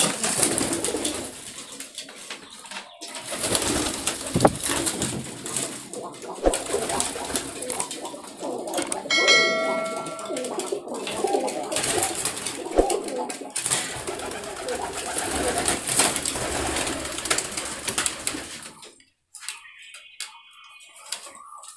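A loft full of domestic pigeons cooing together. About halfway through, a short ringing chime sounds, the subscribe-button sound effect. The cooing drops away near the end.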